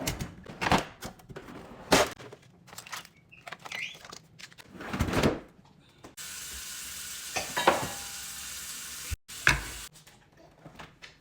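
A run of knocks, clicks and thumps from things being handled, with a steady hiss that starts about six seconds in and cuts off abruptly about three seconds later.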